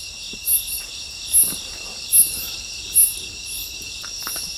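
Night chorus of crickets and other insects: a steady high trill, with one louder insect chirping at an even pace of a little more than once a second, which dies away about three seconds in.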